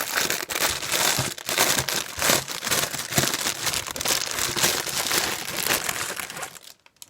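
Packaging bag being opened and rummaged through, a dense run of crinkling and crackling handled close up that stops suddenly near the end.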